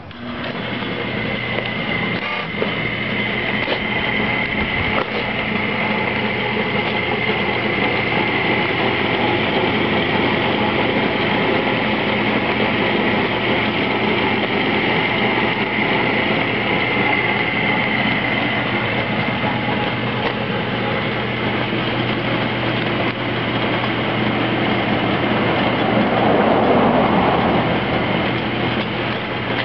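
Craftsman 5-speed bench-top wood lathe switched on and running: its electric motor comes up to speed in the first second or two, then runs smoothly and steadily with the belt and step pulleys turning, giving a steady hum and a high whine.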